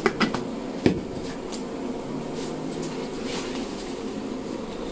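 A couple of light clicks and then one sharp knock about a second in, from foil plates and a plastic container being handled while fuchka is assembled, over a steady background hum.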